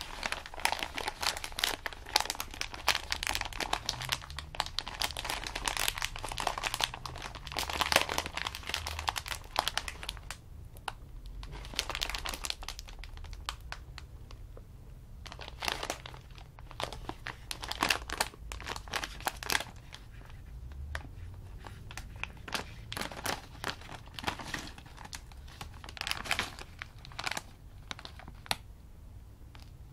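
Crinkly foil-lined plastic snack bag handled, squeezed and pulled open at its sealed top, with irregular bursts of crinkling and crackling, densest in the first third and sparser after.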